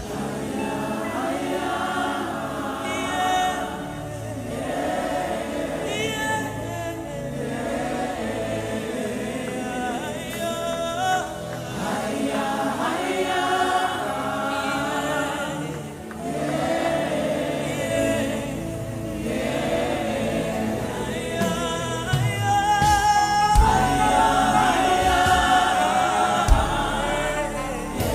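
Gospel worship music: a choir of voices singing together over instrumental backing, in phrases a few seconds long. It grows somewhat louder in the last few seconds.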